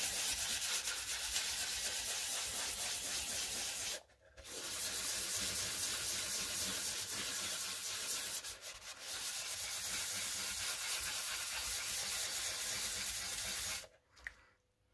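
800-grit wet-and-dry paper rubbed by hand over a primed model aircraft cowl with soapy water, wet-sanding the primer and red cellulose stopper flat: a steady rasping hiss. It pauses briefly about four seconds in, dips again around nine seconds, and stops about a second before the end.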